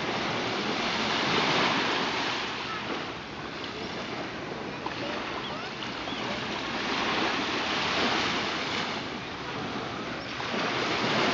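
Small waves breaking and washing up on a sandy beach, the rush swelling three times: about a second and a half in, around eight seconds, and again near the end.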